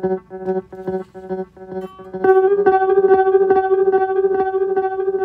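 Guitar note played through a Donner Ultimate Delay pedal, the echoes pulsing about three times a second. About two seconds in, as the delay setting is switched, the sound changes to a louder, brighter held note with faster repeats, about five a second.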